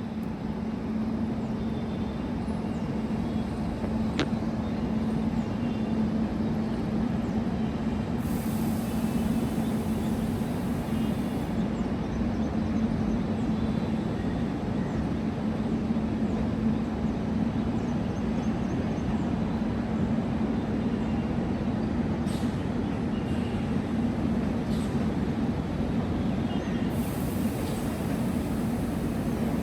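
Mumbai suburban electric train running through the station, a steady rumble with a constant low hum. A high hiss comes in twice, about eight seconds in and again near the end.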